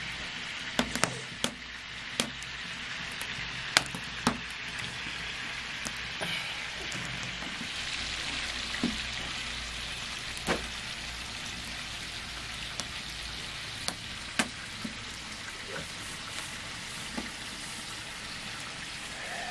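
Food frying in hot oil in a pan: a steady sizzle with sharp clicks or pops now and then.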